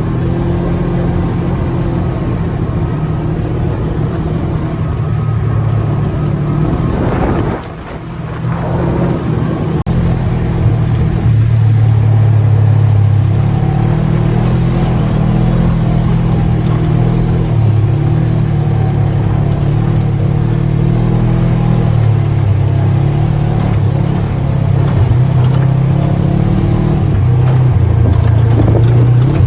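ATV engine running on the move, its pitch rising and falling with the throttle. There is a brief dip in loudness about eight seconds in, after which the engine is louder.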